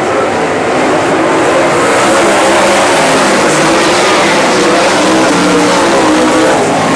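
A field of USAC sprint cars racing on a dirt oval, their V8 engines running loud and overlapping in a wavering mass of engine notes that swells slightly after the first second or two.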